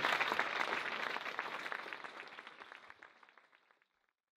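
Audience applauding, the clapping fading away over about three and a half seconds.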